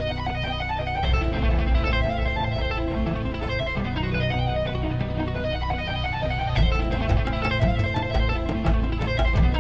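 Background music: a guitar-led instrumental track with a strong bass line, and a run of crisp, evenly spaced percussion hits coming in about two-thirds of the way through.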